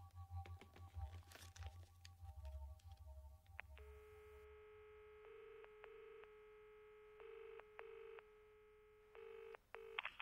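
Telephone being dialled, faint. Handling clicks at first, then a steady dial tone from about four seconds in, with about six short key beeps as the number is keyed in.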